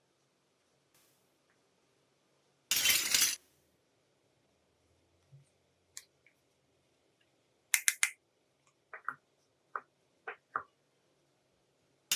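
Small pieces of a miniature toy kitchen set clicking and clinking as they are handled and set down: a quick cluster about eight seconds in, then several single taps. A short burst of rustling about three seconds in.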